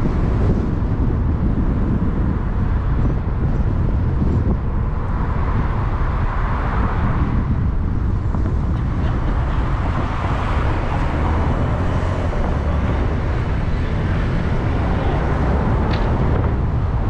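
Steady wind noise buffeting the microphone of a camera on a moving vehicle, with a low rumble of road and traffic noise.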